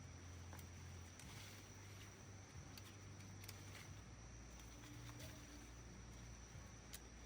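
Near silence: a faint low hum with a few scattered soft ticks.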